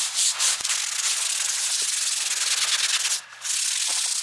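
Porphyry paving slabs being cleaned with cement-haze remover: a steady, rough hissing that breaks off briefly about three seconds in.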